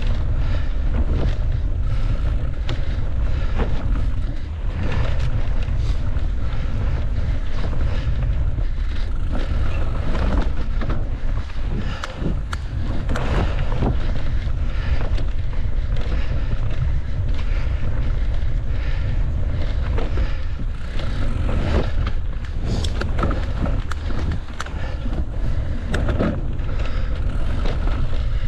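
Wind buffeting the microphone of a mountain bike riding at speed, a constant heavy rumble, with frequent clatter and knocks as the bike rattles over rough trail.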